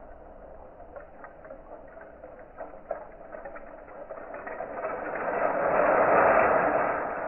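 Bamboo chopsticks clicking and rattling against each other: scattered clicks at first, building into a dense rattle that swells to its loudest about six seconds in, then eases off.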